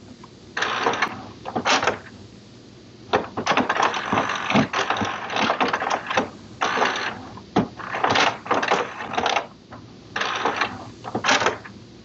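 HP Smart Tank 720 inkjet printer running a level 1 printhead cleaning cycle: its internal mechanism whirs and clatters in irregular bursts, with one longer run of about three seconds near the middle and short pauses between.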